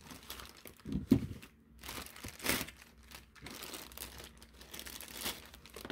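Thin plastic packaging bags crinkling and tearing as they are cut and pulled open with an X-Acto knife, in irregular rustles, with one sharp click about a second in.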